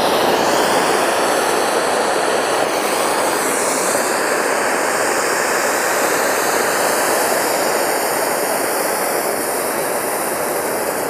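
Anil peacock ('mor') ground fountain firework burning, spraying sparks with a steady, even rushing hiss.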